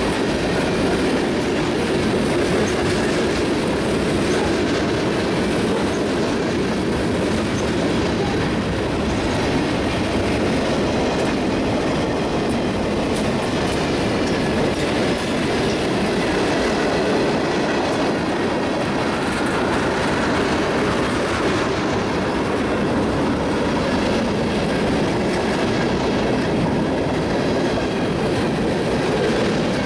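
Freight cars of a long mixed freight train, tank cars and then empty centerbeam flatcars, rolling past close by. Their steel wheels make a steady, loud rolling noise on the rails.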